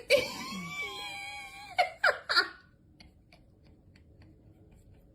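A cat yowling: one long, wavering cry of about a second and a half, then two short, sharp cries that slide in pitch.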